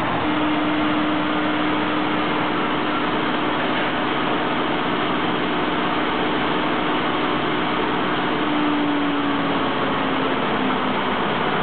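Self-service laundromat washing machine spinning at high speed: a steady rushing noise with a single steady whine that drops a little in pitch near the end.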